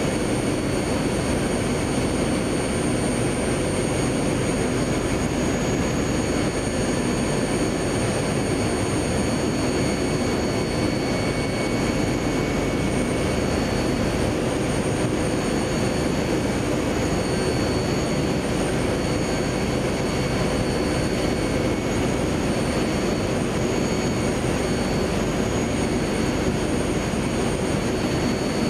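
Adult pull-up diaper production line running: a steady, dense machine din with a few thin, high, constant whines over it.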